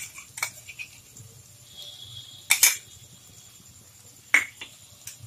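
Utensils knocking against cookware in a few sharp clicks, loudest as a quick double knock about halfway through and once more near the end. Under them is a faint sizzle of onion and garlic paste frying in ghee and oil in an iron kadai, with a steady low hum.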